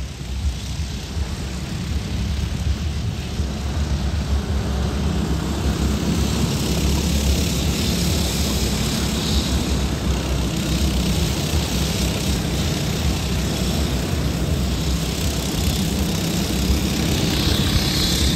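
Several rental go-kart engines buzzing as a pack of karts laps the track, growing louder over the first few seconds and then running steadily.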